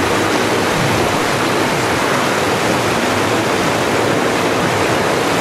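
Shallow rocky creek rushing over stones and logs, a steady loud wash of flowing water.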